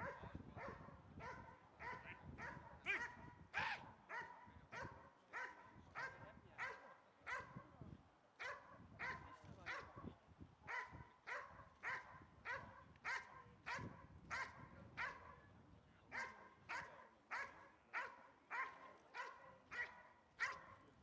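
A police-trained dog barking steadily, about two barks a second without a break, at a helper in a bite suit who stands still with a stick: the bark-and-hold (stokstellen) exercise, where the dog must keep the man at bay by barking instead of biting.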